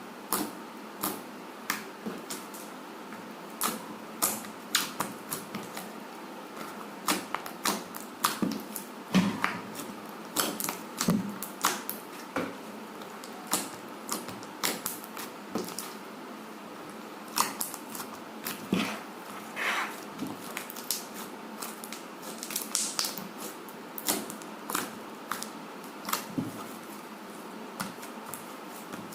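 Slime being squeezed and pressed by hand, giving off irregular sharp clicks and pops, several a second, over a faint steady hiss.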